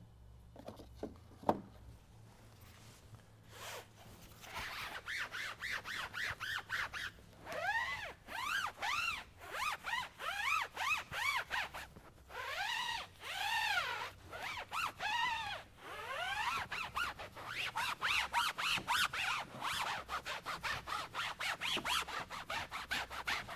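Foam applicator pad rubbing back and forth over a convertible soft top as black-top gel is worked in. The rubbing is quick and rhythmic, about two strokes a second, and each stroke gives a short squeak that rises and falls in pitch. It starts a few seconds in.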